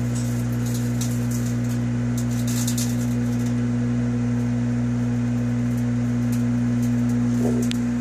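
Microwave oven running with a steady low hum, while the compact disc inside arcs, making sharp crackles and snaps. The crackles come thickest in the first few seconds and a few more near the end.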